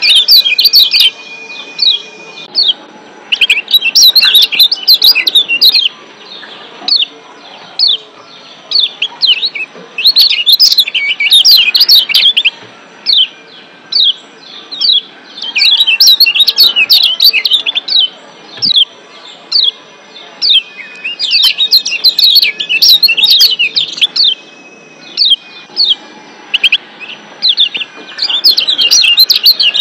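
Kecial kuning Lombok (yellow white-eye) giving its 'ciak' calls: rapid bursts of short, sharp, high chirps every few seconds, with single chirps about twice a second between the bursts. A thin, steady, high whistle is held under the chirping near the start and again near the end.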